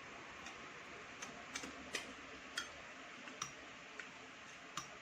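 Eating utensils clicking and tapping against plates and bowls: about nine light, separate clicks at uneven spacing over a steady hiss.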